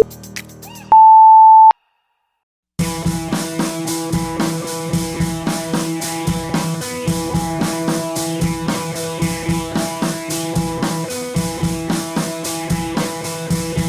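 Workout interval-timer beeps: a short low beep, then a long, loud, higher beep about a second in, marking a change of interval. After about a second of silence, background music with a steady drum beat and guitar starts.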